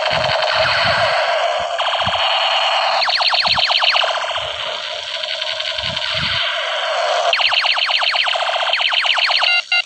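Battery-powered toy gun's electronic sound effects playing through its small speaker: bleeping, alarm-like tones and stretches of rapid electronic machine-gun rattle, with a few handling knocks. It cuts off suddenly near the end.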